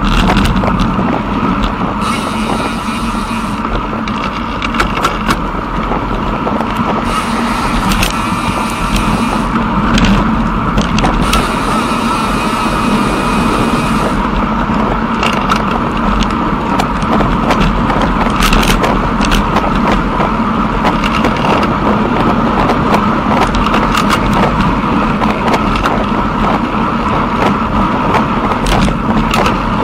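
Steady rumbling rolling and wind noise with a constant hum and many scattered small clicks and rattles, as heard from a microphone carried along a towpath.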